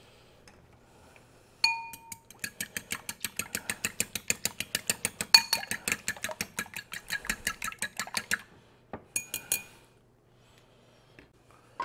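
Fork beating eggs and milk in a ceramic bowl: one ringing clink against the bowl, then a fast, even run of taps, about six a second for some six seconds, and a short last flurry near the end.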